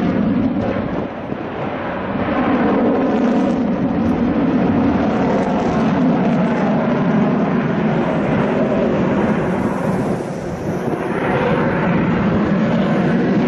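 Jet aircraft engine noise, a steady rumble with two brief dips in loudness, about a second in and near ten seconds in.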